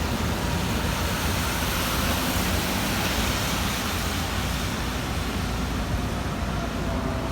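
Steady street noise: engines running and traffic, a low rumble with an even hiss and no distinct events.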